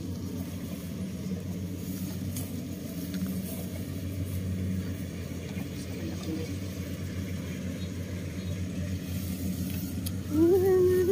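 Rice combine harvesters' engines running in the field, a steady low drone. A short, louder pitched call breaks in near the end.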